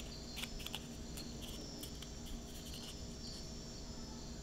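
Faint, steady chirping of insects, with a few soft clicks in the first second.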